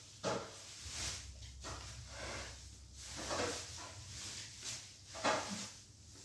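A person eating rice mixed by hand with a thin raw-mango pachi pulusu: a few short, irregular sounds of hand and mouth, the loudest about five seconds in, over a low steady hum.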